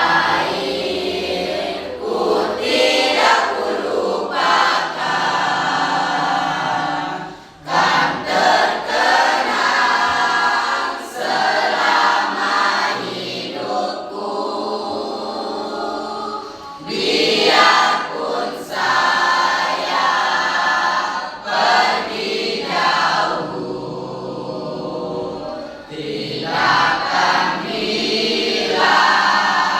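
A choir singing together in phrases, with a short break between phrases about seven seconds in.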